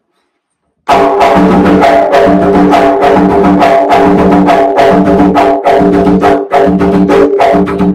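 Bomba barrel drum (barril) played with bare hands in a yubá rhythm, starting about a second in: a steady repeating pattern of ringing open tones about once a second with quicker strokes between them.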